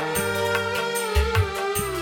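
Dangdut band music: a long held melody note wavering slightly, over a steady drum beat with regular cymbal strokes.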